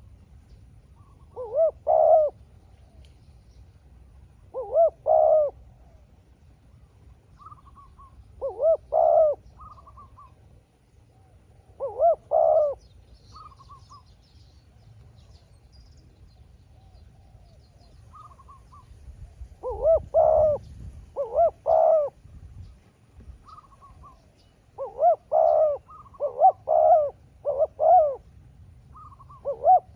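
Spotted doves cooing back and forth. A loud, close dove gives short coo phrases every few seconds, running several together near the end, while a fainter dove with a smaller voice answers with short notes in between.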